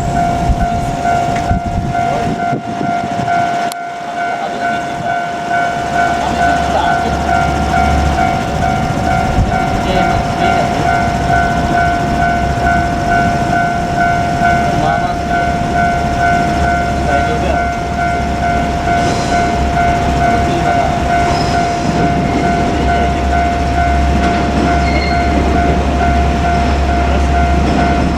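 Japanese level-crossing warning bell ringing steadily and repeatedly while a train runs past, its low rumble coming in about five seconds in.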